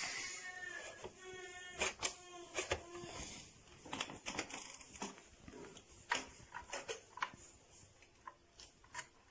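Scattered sharp clicks and light knocks of a hard-plastic toy bulldozer being handled, its parts clicking as they move. A faint voice is heard in the first few seconds.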